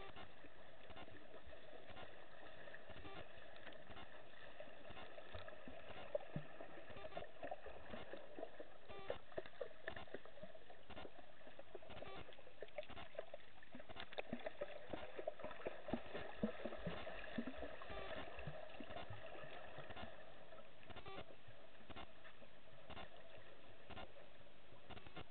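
Underwater sound picked up by a camera in its waterproof housing during a snorkel: a steady muffled hum of the water, with scattered clicks and knocks that come thickest in the middle of the stretch.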